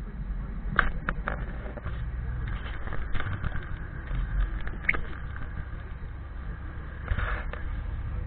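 Car driving, heard from a windscreen-mounted dashcam inside the cabin: a steady low road and engine rumble, with short sharp knocks, several in the first couple of seconds and a brief cluster near the end.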